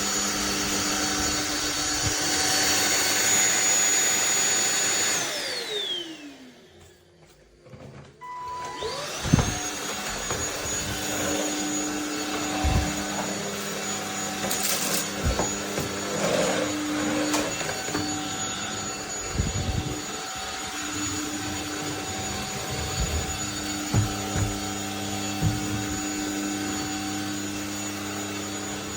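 Anyson 550 W cordless stick vacuum running with a steady motor whine. About five seconds in it is switched off and its motor winds down to silence. A short beep sounds, then the motor spins back up and runs steadily again, with occasional knocks of the head against the floor.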